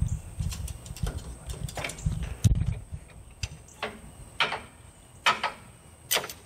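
Old hand-crank winch being wound, its ratchet clicking, as it drags a 1988 Corvette's rear suspension assembly out from under the car with metal clanks. Low rumbling with many small clicks in the first few seconds, then separate sharp clicks about a second apart.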